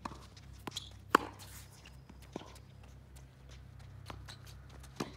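Tennis balls being struck and bouncing on a hard court: a handful of sharp pops, the loudest a little over a second in, over a low steady hum.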